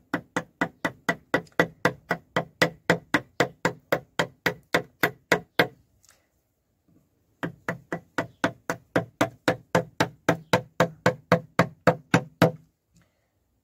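Round wooden carver's mallet striking a carving chisel into a wooden panel, driving it along the marked-out lines of a relief carving. The light knocks come evenly, about four a second, in two runs with a pause of about a second and a half near the middle.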